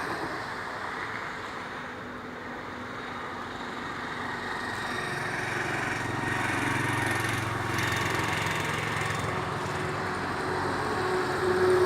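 An engine running steadily, its hum growing stronger and louder from about halfway through.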